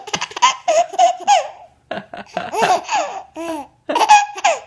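Baby laughing in two runs of short, high-pitched bursts of giggles.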